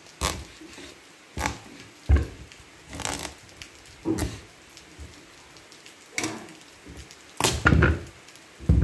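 Kitchen knife cutting through a pumpkin's hard rind on a wooden board: a series of short cracking, creaking strokes about a second apart, with a longer, louder one near the end as the pumpkin splits into halves.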